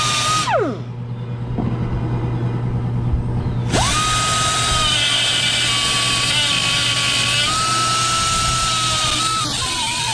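Air-powered angle grinder with a small disc grinding the steel at a cracked weld, cutting it out to re-weld it. It runs with a steady whine, is let off about half a second in and spins down, then spins back up quickly about four seconds in and grinds steadily. A steady low hum runs underneath.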